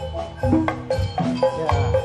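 Javanese gamelan accompanying a jathilan dance: struck metal-keyed mallet instruments ringing in a running pattern over drum strokes.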